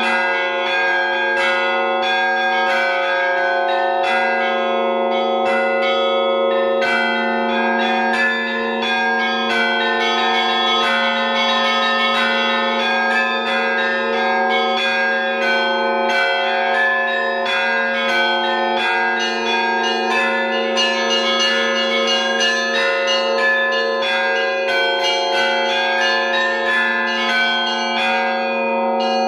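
Russian Orthodox church bells in a continuous peal (zvon): small bells struck in quick, dense patterns over the steady, sustained ring of the larger bells.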